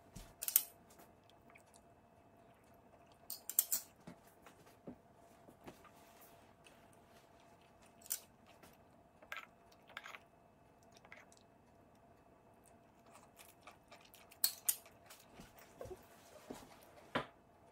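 Faint, scattered sharp clicks and short crackles, some in quick little clusters, over a faint steady hum.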